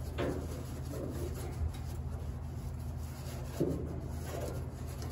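A pad rubbing and scrubbing on the bare steel underside of a car hood, a few soft scuffing strokes over a steady low hum.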